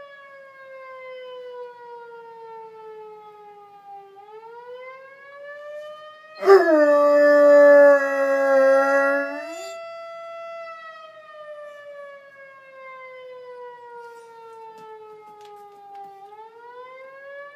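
A fire siren wailing, its pitch sliding slowly down and back up in long cycles. Just past the middle, a four-month-old puppy joins in with one loud howl of about three seconds.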